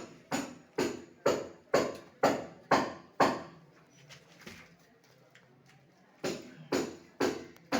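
Hammer blows, about two a second, each with a short ring. They stop for about three seconds midway, then start again.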